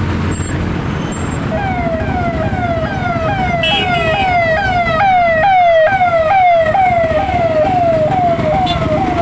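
Electronic siren sounding a fast, repeating falling wail, about two cycles a second, coming in about a second and a half in and loudest near the middle, over a steady rumble of road traffic.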